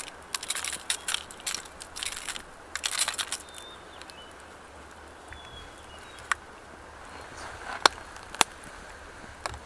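Aluminium foil crinkling and crackling in dense bursts for about three and a half seconds as the trout lying on it are handled, followed by a few single sharp clicks.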